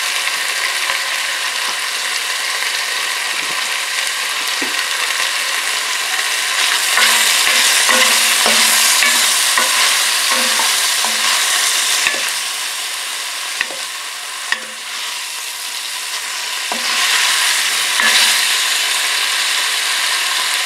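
Sliced beef sausage frying in olive oil in an enamelled cast-iron Dutch oven: a steady sizzle as it browns. A wooden spoon stirs through the slices, with a few short clacks of the spoon against the pot.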